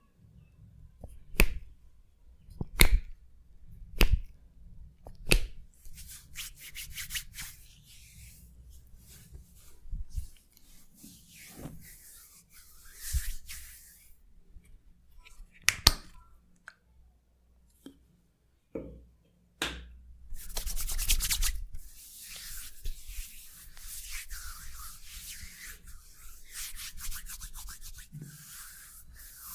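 Hands massaging skin: four sharp smacks about a second apart in the first few seconds, then short rubbing strokes, turning into steady continuous rubbing from about twenty seconds in.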